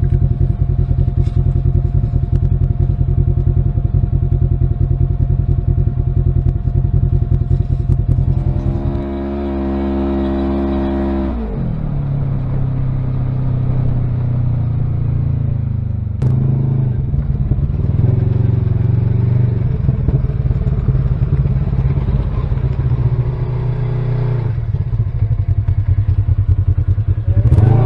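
Side-by-side UTV engine heard from inside the cab. It runs steadily at idle for about nine seconds, then pulls away and keeps running as the machine drives, its pitch shifting up and down.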